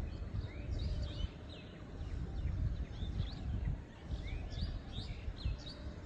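Plum-headed parakeets calling: short, high, rising chirps repeated about twice a second, over a low rumbling background noise.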